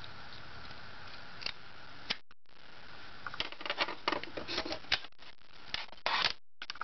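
Steady hiss, then from about three seconds in a run of sharp metallic clicks and clatter as locking pliers are worked open and a small bent metal part is freed. The busiest burst comes near the end. The audio drops out briefly twice.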